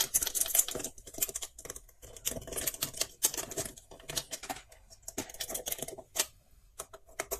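Screwdriver working the terminal screws on the back of a switch board, with wire being handled against it: a run of small, irregular clicks and scrapes.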